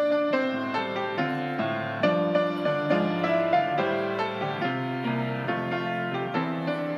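Grand piano played solo, a steady flow of chords under a melody, with new notes struck about every half second.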